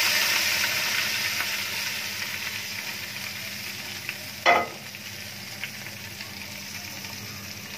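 Hot oil from frying onions sizzling as it is poured over marinated meat and potatoes in a metal pot, the hiss loudest at first and dying away gradually. A single short knock about four and a half seconds in.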